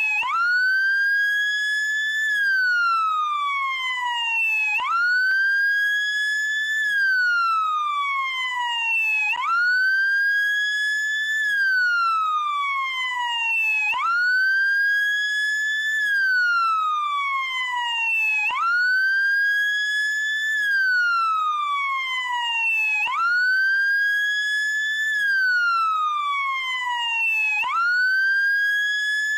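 Wail siren of a SAMU ambulance motorcycle, cycling steadily: each cycle jumps quickly up, holds for about two seconds, then glides slowly down, repeating about every four and a half seconds.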